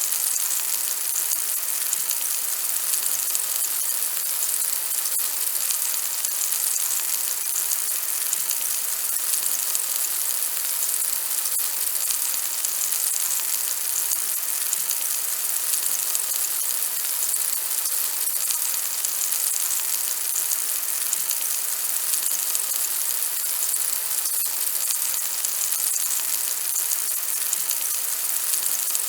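Oil sizzling in a frying pan: a steady high hiss flecked with fine crackles.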